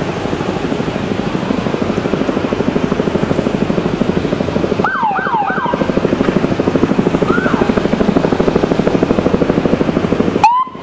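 Police cruiser sirens giving short yelping chirps as the vehicles pass: a quick run of three about five seconds in, another a couple of seconds later, and a sharp rising whoop near the end. Under them runs a steady, rapidly pulsing drone.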